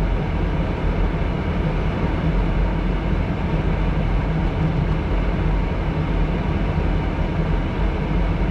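Steady running noise inside a Jeep's cabin: the engine's low hum under the rush of the heater fan blowing on automatic heat.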